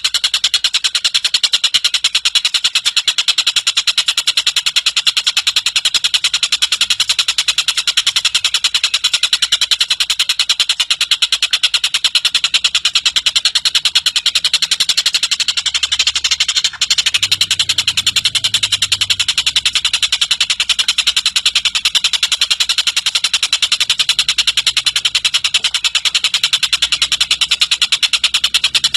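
Oriental dollarbird (tengkek buto) giving a long, unbroken chatter of rapid, evenly spaced harsh notes, with a split-second break about two thirds of the way through.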